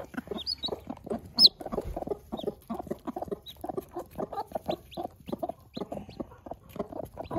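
Mother hen clucking in a quick, steady run of short low clucks, about four a second, with a chick's high peeps over it. The loudest peep comes about one and a half seconds in.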